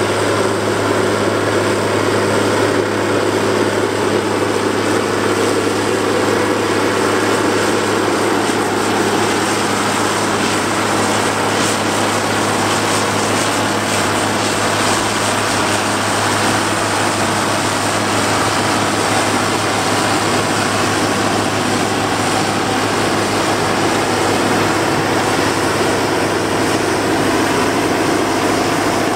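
1972 Deutz D 130 06 tractor's air-cooled six-cylinder diesel engine running steadily under load, powering a FOX 2310 forage harvester chopping straw. The engine note and the harvester's noise stay level and unbroken throughout.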